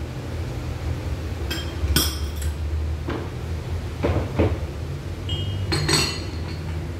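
Crockery and metal cutlery clinking as they are handled and set on a serving tray: several separate clinks, a couple of them ringing briefly.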